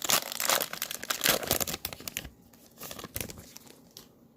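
A trading card pack's foil wrapper being torn open and crinkled. Dense crackling fills the first two seconds, then a few quieter rustles follow.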